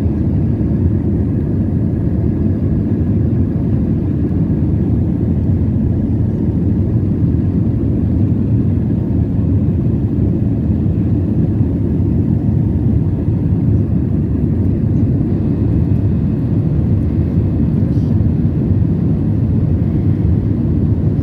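Steady jet-airliner cabin noise inside an AirAsia Airbus A320-family jet climbing out after takeoff: engine thrust and rushing air make an even, unbroken low rumble.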